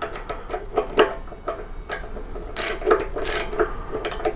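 Socket ratchet clicking in short, irregular strokes as the front brake caliper bolts are tightened down, with denser runs of clicks about two and a half and three and a quarter seconds in.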